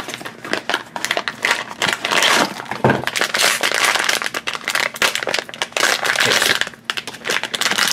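Foil blind bag crinkling as it is handled and worked open with the fingers: a dense, irregular crackling that runs on with short pauses.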